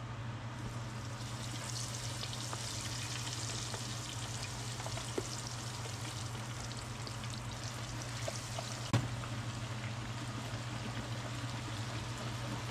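Chicken wings deep-frying in hot beef tallow: a steady sizzle of bubbling fat, with a constant low hum beneath it and a couple of faint clicks.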